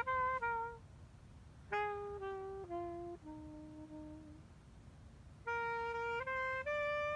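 Saxophone playing a slow melody of held single notes: a short phrase that steps down in pitch, a pause of about a second, then a phrase that climbs.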